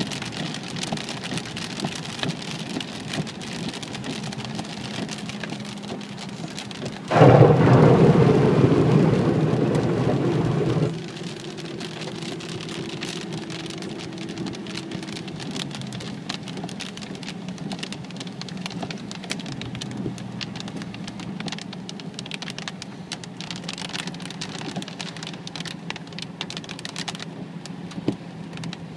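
Heavy rain pattering on a car's windshield and roof, heard from inside the cabin, over a low steady hum. About seven seconds in, a much louder rushing burst starts suddenly, lasts about four seconds and cuts off abruptly.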